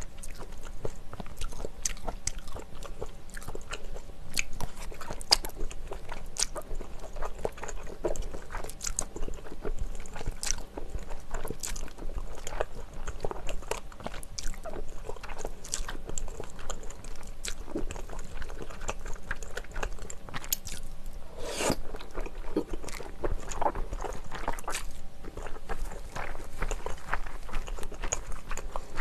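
Close-miked eating sounds: a person slurping and chewing thick, chewy Chinese glass noodles in spicy mala sauce, with many wet mouth clicks and smacks. One longer, louder burst comes a little past two-thirds of the way through.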